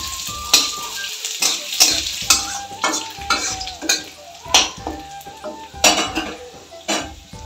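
Grated ginger and whole spices frying in hot oil in a kadai, sizzling steadily while a metal spatula stirs and scrapes across the pan in a dozen or so sharp strokes. This is the tempering (phoron) for dal. The sizzle settles down over the seconds.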